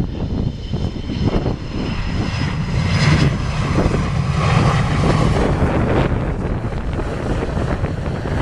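Engines of an airliner coming in to land, the roar swelling about three seconds in and then easing, with gusty wind buffeting the microphone.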